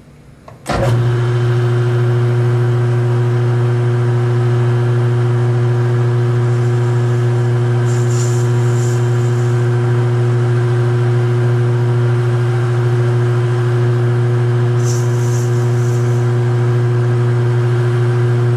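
Metal lathe running at a steady speed: a loud, even motor hum that starts abruptly within the first second and holds one pitch throughout. Two faint brief hisses come through about halfway and again near the end.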